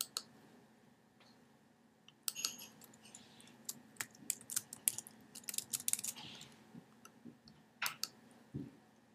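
Typing a short word on a computer keyboard: a quick, uneven run of key clicks, followed near the end by a single mouse click.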